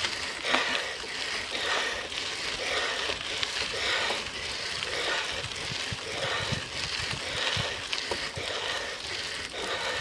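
Riding noise from a bicycle being pedalled up a steep climb: steady rushing of wind over the microphone with irregular low buffeting, and tyre noise on the road.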